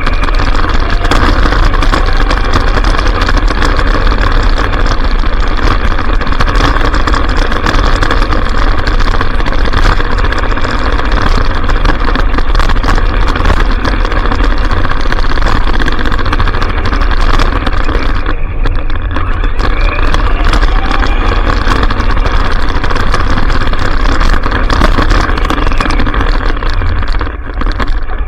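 Traxxas Stampede electric RC truck driving over grass, heard from a camera sealed in a waterproof case on its bed: a steady, loud rush of motor and drivetrain noise mixed with the rattle and bumping of the chassis.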